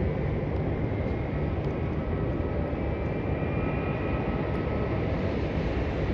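Boeing 737 jet airliner climbing out after takeoff: a steady engine rumble with a faint high whine drifting slightly in pitch.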